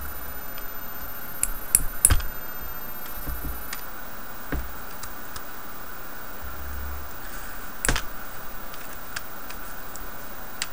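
Small metal clicks and taps of a disassembled Master Lock 930 padlock core and its pins being handled while the key pins are worked out, with a cluster of sharper clicks about two seconds in and another sharp one later on.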